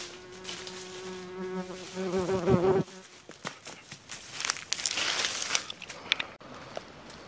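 A fly buzzing close by with a steady drone that wavers in pitch and cuts off suddenly about three seconds in, followed by rustling or crinkling.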